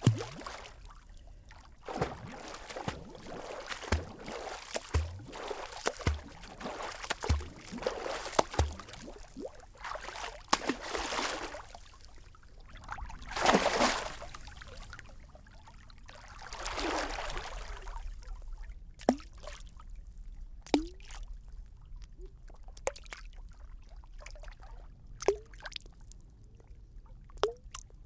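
A person swimming: splashing strokes about once a second, with a few bigger, longer splashes in the middle. In the last third the water settles to occasional small plops and drips.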